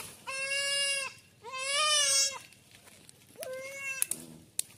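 Baby goat bleating in distress as it is seized by a predator: two long bleats, then a shorter one about three and a half seconds in, with two sharp clicks near the end.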